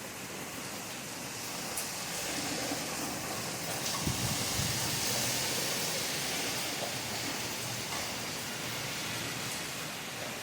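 Steady, even rain, swelling a little louder a few seconds in, with a brief low rumble about four seconds in.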